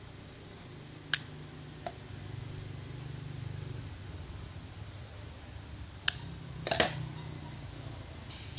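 Scissors snipping plastic drinking straws: sharp clicks, two a little over a second in and a louder cluster around six to seven seconds in, over a steady low hum.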